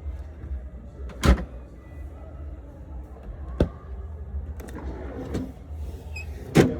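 Three sharp knocks, about a second in, past the middle and near the end, over a steady low hum.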